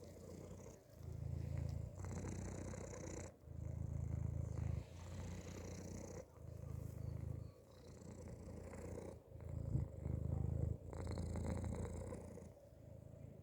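Domestic cat purring from inside a hoodie, the purr swelling and easing with each breath, about once every second or so.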